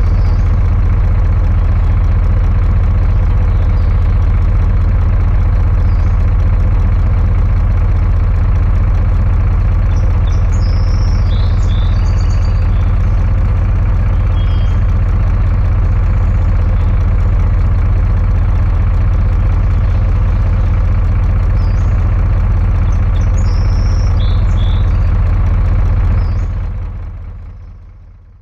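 Diesel truck engine idling steadily with a low, even run, fading out near the end.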